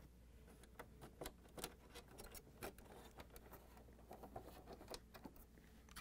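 Near silence broken by faint, scattered light clicks and rustling as hands handle plastic wire-harness plugs and wires inside a refrigerator's dispenser housing.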